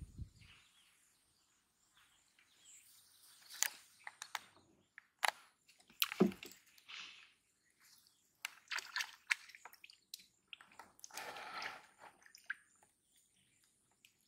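Quiet outdoor ambience with scattered short bird chirps and a few sharp clicks and taps, with a low thump at the very start.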